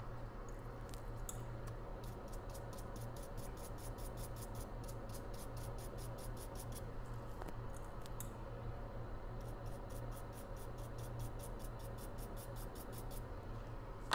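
Rapid, evenly paced scrubbing strokes, about five a second in two runs, as flux residue is cleaned off the CPU pads of an iPhone 12 Pro Max logic board. A steady low hum from workshop equipment runs underneath.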